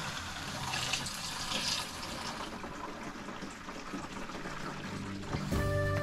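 Water running from a hose through an inline water filter into a plastic jerrycan, a steady pouring and splashing as the jug fills. Music comes in near the end.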